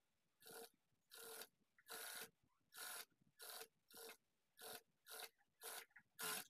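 Single-needle industrial sewing machine stitching in short runs, about ten quick bursts a little more than once a second, as a neck facing is eased around a curved neckline.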